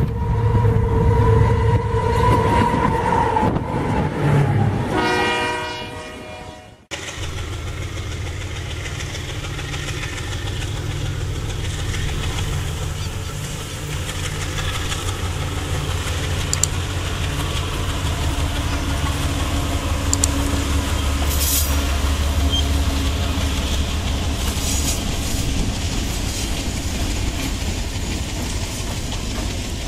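A locomotive horn sounds for the first few seconds, fading and then cutting off abruptly about 7 seconds in. It gives way to the steady low rumble of GE diesel locomotives (two U20-Cs and a C30-7) passing while running light, without cars. A few sharp clicks can be heard over the rumble.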